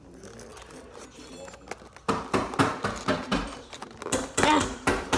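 Plastic packaging of a fidget cube being knocked and wrestled open by hand: a rapid, uneven run of sharp clacks and knocks that starts about two seconds in.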